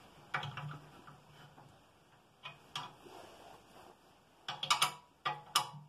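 A spanner clicking and tapping on the nuts and screws of an electric motor's sliding mount as they are tightened: scattered sharp metal clicks, with quick clusters of several clicks near the end.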